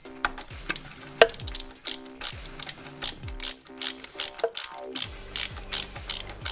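Toptul hand ratchet with a 12 mm socket clicking in quick repeated strokes, about two a second, as the speed sensor's mounting bolts are run in.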